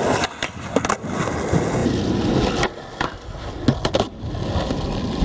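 Skateboard wheels rolling on asphalt, with several sharp clacks of the board striking the ground.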